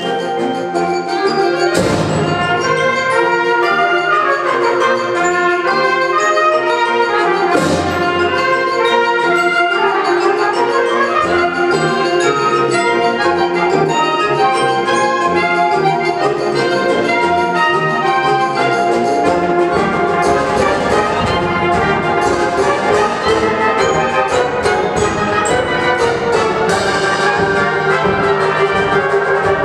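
Live high school wind ensemble playing a fast concert-band piece, with trumpets and other brass over the woodwinds. Two sharp percussion crashes come about two and eight seconds in, and the percussion grows busier in the second half.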